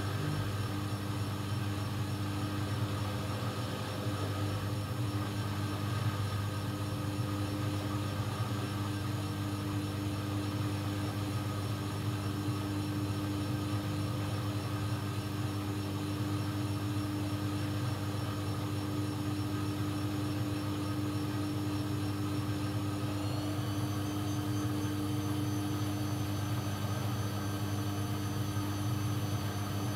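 AEG Lavamat 1400 washing machine spinning: a steady drum-motor hum and high motor whine, with the whine rising in pitch about 23 seconds in as the drum speeds up.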